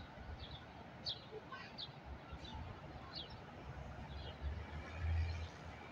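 Faint bird chirps: several short, high calls spread over the first few seconds, over a low rumble that swells about five seconds in.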